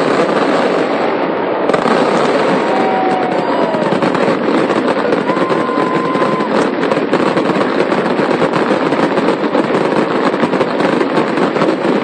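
Fireworks going off in a dense, continuous barrage of rapid crackling and popping, with a few short whistles in the first half.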